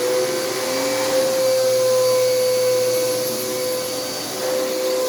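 Bissell CleanView upright vacuum cleaner running steadily at full speed, its motor giving a steady whine over the rush of airflow.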